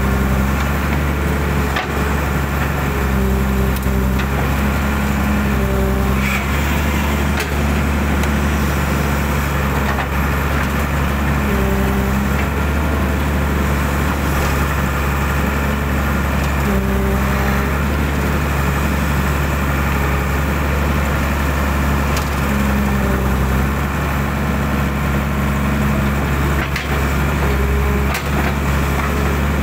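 Hydraulic excavator's diesel engine running steadily under working load, with higher hydraulic tones rising and dropping away every second or two as the boom and bucket move. A few short knocks and cracks come through over it.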